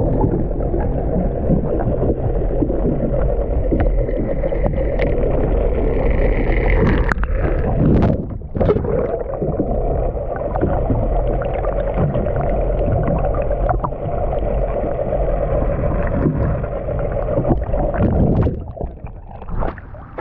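Muffled rushing and gurgling of seawater heard through a camera held under the surface. It thins out just before the end as the camera comes up into the air.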